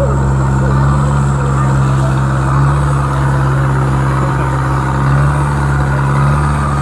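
Steady engine drone, running evenly with no change in speed.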